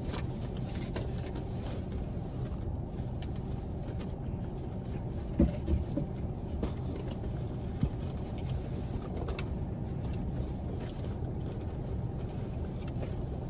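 Steady low rumble of a car idling, heard from inside the cabin, with a few brief small knocks partway through.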